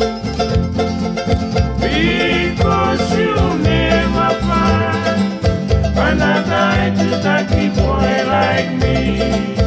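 Cook Islands string-band song: bright plucked ukuleles and acoustic guitar over a steady bass, with a gliding melody line coming in about two seconds in.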